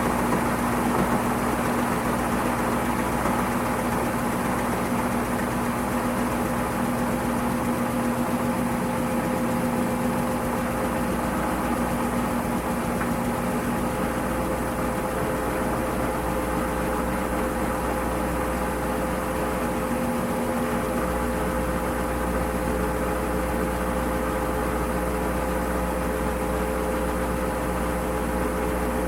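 Washing machine running with a steady motor hum. About two-thirds of the way through, one tone in the hum fades out and a deeper rumble comes up.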